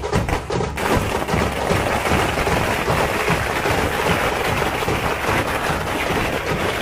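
Firecrackers going off on the street in a dense, rapid crackle, starting about a second in and keeping on without a break. Procession drumming is heard briefly at the start.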